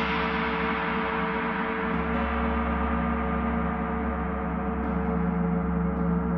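A gong ringing on after a strike, a dense sustained wash of many overtones over a steady low hum. Faint light touches sound against it about five and six seconds in.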